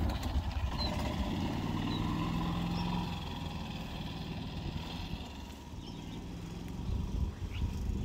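Golf cart driving across grass, its motor running steadily and growing quieter after about three seconds as the cart pulls away.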